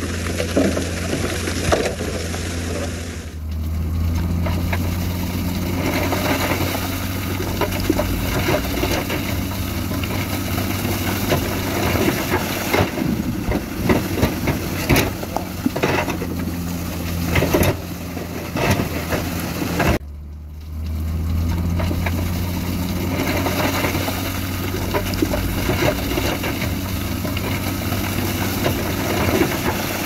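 Heavy diesel earthmoving machinery running steadily, with rock clattering and scraping over the engine noise. The sound drops off briefly twice, about 3 and 20 seconds in, then resumes.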